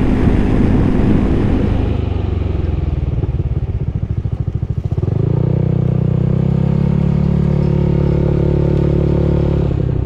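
Motorcycle engine running with rushing noise that fades over the first two seconds. It drops to a low, uneven pulsing putter for a couple of seconds, then runs at a steady, even pitch from about halfway.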